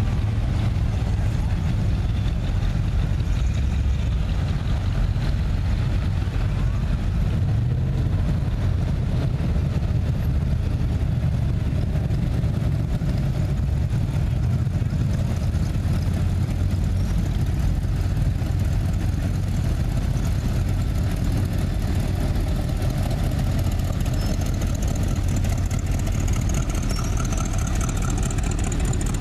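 Engines of classic cars and hot rods running at low speed as they roll past one after another, a steady low engine sound.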